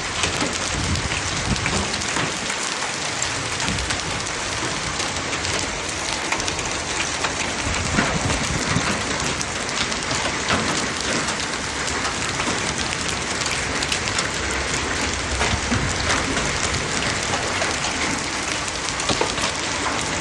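Hail falling steadily: a dense hiss with many small, sharp impacts of hailstones striking surfaces.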